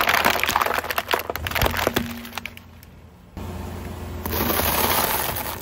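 Car tyre crushing a clear plastic egg carton: the plastic cracks and snaps in a dense run of sharp cracks for about two seconds. About four seconds in, the tyre rolls onto a block of dry instant noodles, which crunch with a steady crackling rustle for about a second.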